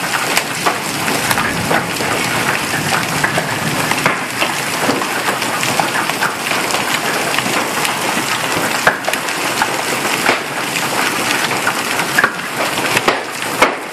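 Heavy hailstorm with large hailstones, a bit bigger than golf balls, falling amid heavy rain: a dense steady hiss with many sharp cracks of single stones striking hard surfaces.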